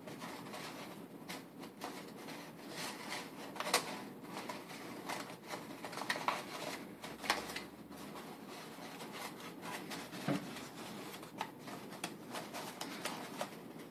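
Stiff paper lamp pieces being handled and slotted together, rustling with irregular small crackles and clicks.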